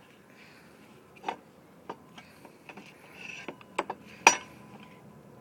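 Scattered sharp clicks and taps of tools and brake caliper parts being handled, about half a dozen, the loudest a little after four seconds in.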